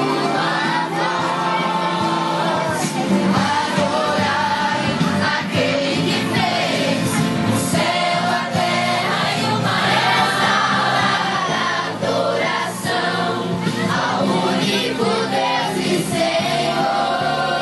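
A group of young voices singing a Christian worship song together, choir-style.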